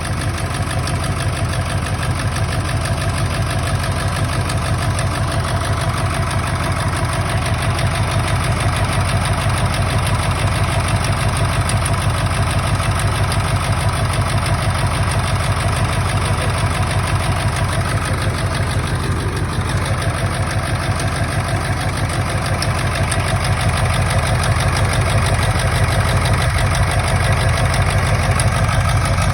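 1999 Ford F-350's 7.3 Powerstroke turbo-diesel V8 idling steadily, running rough from an injector misfire.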